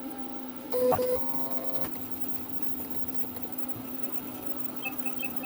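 CNC machine's stepper motors whining steadily as a spring-loaded carbide engraving tool scratches lettering into a tag, with a louder, higher whine for about a second near the start. A faint rapid ticking begins near the end.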